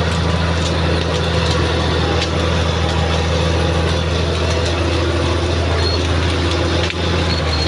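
Caterpillar D6R XL bulldozer's diesel engine running steadily at a low, even drone, with occasional light clicks.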